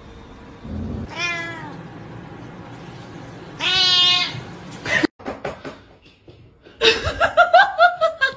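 Domestic cat meowing twice: a short meow about a second in, then a longer, louder one around four seconds. After a sudden break, a person laughs in quick bursts near the end.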